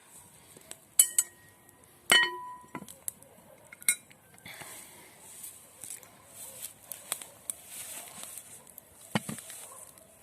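Two ringing clinks of cookware, one about a second in and one about two seconds in, then faint crackling with scattered small ticks and a dull thump near the end.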